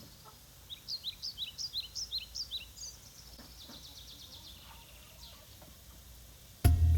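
A small bird's rapid run of short, high, rising chirps, about four a second, lasting about two seconds, over faint outdoor background noise. Music starts abruptly near the end.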